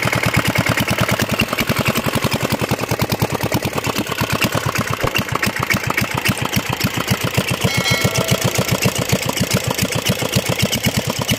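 Single-cylinder Bullet engine running steadily at a constant speed with an even, rapid beat of firing strokes, belt-driving a small water pump that lifts water out of a well.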